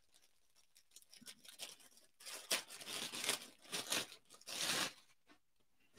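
Packaging rustling and tearing as a new shirt is unwrapped, in irregular bursts that are loudest from about two seconds in.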